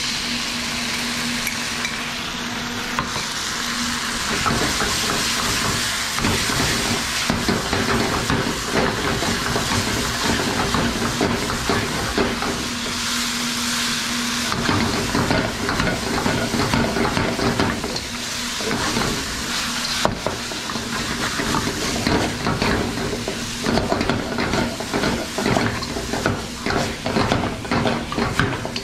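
Kung Pao chicken sauce sizzling as it is poured into a hot wok of chicken, peanuts and scallions, then stir-fried. A spatula scrapes and clacks against the wok in rapid strokes that grow busier in the second half, over a steady low hum.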